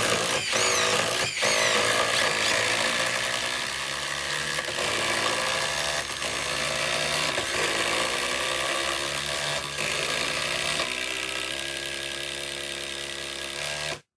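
Hercules HCB81B brushless impact driver hammering construction screws and lag screws into wood, a continuous rapid rattle whose pitch steps up and down as the load changes. It cuts off suddenly near the end.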